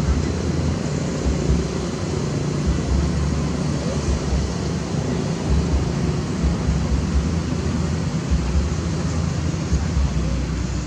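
Wind buffeting the microphone: a steady, unbroken low rumble with irregular gusty pulses and a faint hiss above it.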